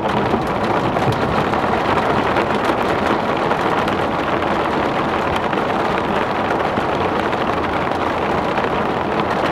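Heavy rain pouring down in a steady, dense hiss, with drops striking close to the microphone.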